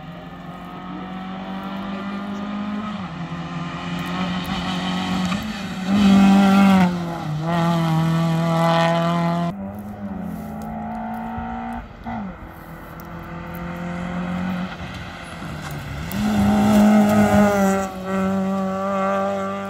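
Rally cars accelerating hard past on a tarmac stage, their engines revving up through the gears with quick drops at each shift. A Hyundai i20 is loudest as it passes about seven seconds in. After a sudden cut, a Ford Puma climbs through its gears and is loudest near the end.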